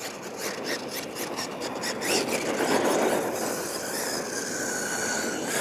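Radio-controlled monster truck running on a dirt track, its tires churning loose dirt in a steady gritty scraping that grows louder about two seconds in. A faint thin whine from the truck's drivetrain comes in near the end.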